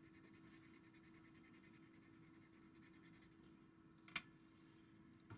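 Faint scratching of a Derwent Aquatone woodless watercolour pencil scribbling a swatch onto watercolour paper, over a steady low hum. One sharp tap about four seconds in.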